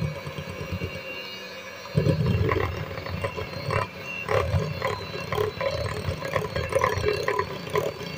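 Electric hand mixer running, its motor humming while the beaters knock and clatter against the glass bowl as they beat cream cheese with sugar. The sound gets louder about two seconds in.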